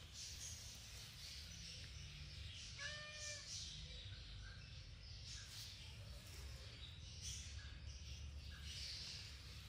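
Faint outdoor background with one short, pitched animal call about three seconds in.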